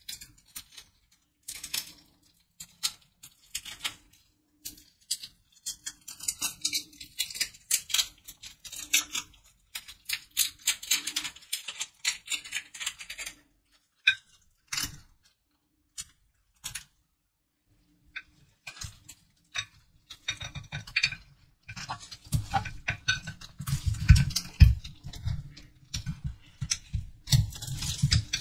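A paper candy wrapper crinkling and crackling as gloved hands unwrap a soft caramel, for roughly the first half. After a quieter pause with a few light clicks, dull knocks and scraping against a plastic plate take over in the last third.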